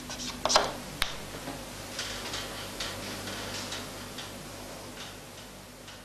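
Chalk tapping and scraping on a blackboard: a couple of sharp taps in the first second, then lighter irregular ticks, fading out towards the end.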